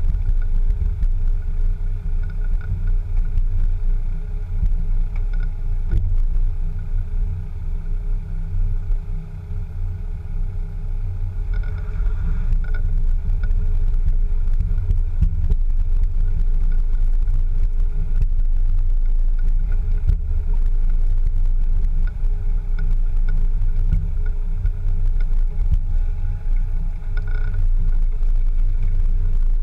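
Land Rover Discovery 2 driving slowly over a gravel track, heard from low beside the rear wheel: a steady low rumble of tyres and running gear, with the engine under it. It eases off for a couple of seconds about eight seconds in.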